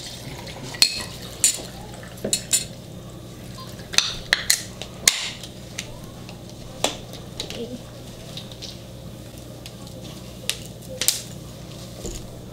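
Scattered sharp clinks and taps of tableware and drink containers being handled at a dining table, about a dozen over several seconds, over a steady low hum.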